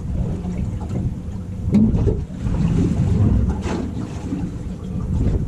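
Wind buffeting the microphone over a boat at sea: a steady low rumble of wind and water, with a couple of short knocks.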